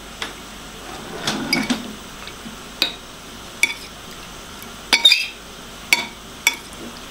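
Metal fork clinking against a white ceramic bowl while stirring steamed fish pieces in soy sauce: about ten sharp clinks at uneven intervals.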